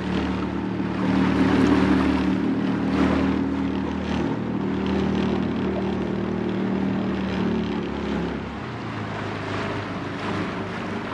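Small open tour boat's engine running steadily under way, with wash and wind noise over it. About eight seconds in, its note changes and it gets a little quieter.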